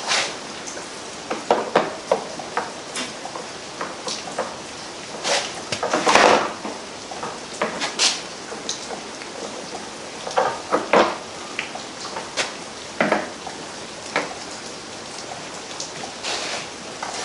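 Irregular metallic clinks, clicks and knocks of hand tools and parts being handled while a Predator 670 engine is reassembled, over a steady hiss.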